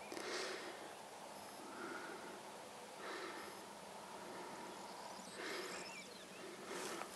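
A person breathing and sniffing through the nose close to the microphone, a short breath every second or two, over a steady hiss.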